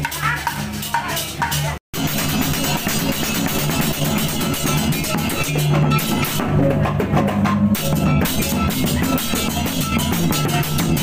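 Balinese gamelan percussion playing: two-headed kendang drums beating under crashing ceng-ceng cymbals and ringing gongs in a dense, steady rhythm. The sound drops out for a moment about two seconds in.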